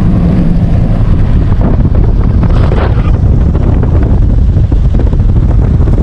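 Wind buffeting the microphone held out of a moving car's window: a loud, steady low rumble over the car's engine and tyre noise on a gravel road.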